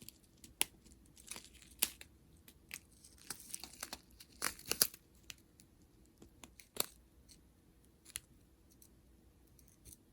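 Small plastic bags of round diamond-painting drills being handled: intermittent crinkling and rustling with scattered sharp clicks, busiest around the middle.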